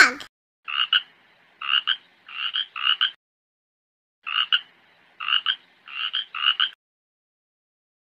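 A frog croaking in two runs of about four short two-part croaks each, with a pause between the runs. The tail of a duck's quack ends right at the start.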